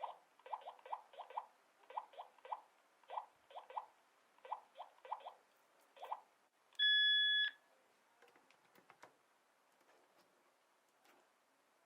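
A run of short chirping clicks in quick groups of two or three, then one steady electronic beep lasting under a second, the loudest sound here, followed by a few faint clicks. The beep fits a wireless doorbell unit's confirmation tone during setup.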